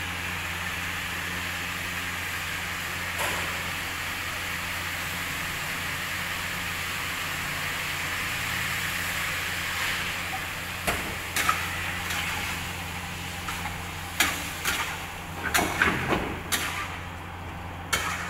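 Chunks of meat sizzling steadily in a hot steel wok over a gas burner. About ten seconds in, water is poured in, and then a metal spoon knocks and scrapes against the wok in a run of sharp clacks as the meat is stirred.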